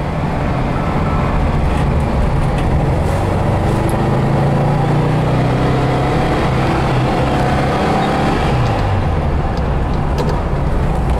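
The 1963 VW Beetle's air-cooled 1200cc flat-four engine is running under way, heard from inside the cabin. Its note rises slowly as the car gains speed, then drops late on as the 4-speed manual gearbox is shifted up.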